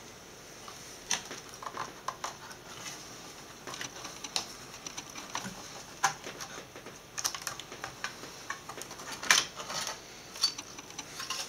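Scattered small clicks and light taps of handled metal parts: screws and the sheet-metal motherboard shield being handled and worked loose.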